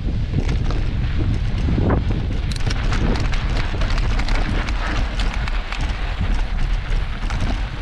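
Wind buffeting the microphone of a camera on a mountain bike riding fast down a loose dirt and gravel trail, with the tyres crunching over stones and many short clicks and rattles from the bike.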